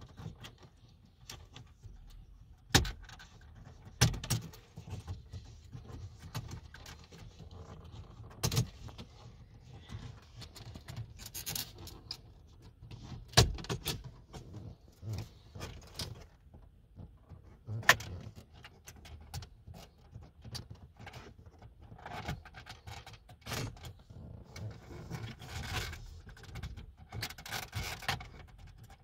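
VW Tiguan Mk2 clip-in plastic dashboard trim being pried out with a plastic trim tool: about five loud sharp clicks, spaced a few seconds apart, as its retaining clips pop free. Between them, plastic scrapes and rubs against plastic, busiest near the end.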